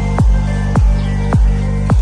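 Electronic background music with a steady beat: a deep kick drum that drops in pitch on each hit, a little under two hits a second, over sustained bass and chords.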